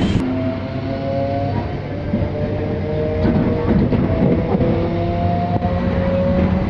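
MEMU electric multiple-unit train running, a steady rumble with several drawn-out squealing tones that overlap and come and go.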